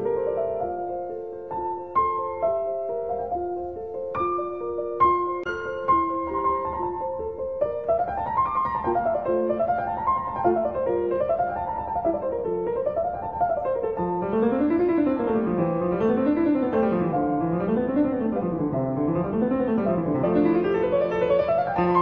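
Background piano music. Single notes ring out, then about eight seconds in fast runs of notes climb and fall in waves, and a second, lower line joins them about fourteen seconds in.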